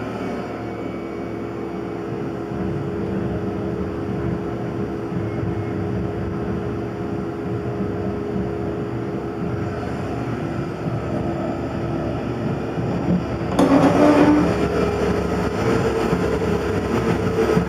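Tormach PCNC 1100 CNC mill running a milling job in MIC6 cast aluminium plate: a steady machine hum with a constant tone. About three-quarters of the way through, a louder, harsher noise starts and keeps going.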